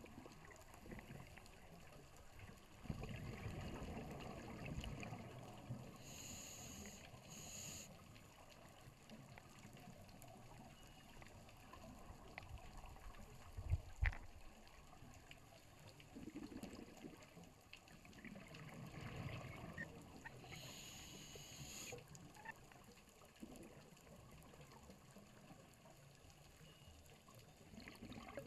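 Underwater sound of a scuba diver breathing through a regulator: low bubbly rumbles of exhaled air and short hissing breaths, in two slow cycles. A sharp knock comes about halfway through.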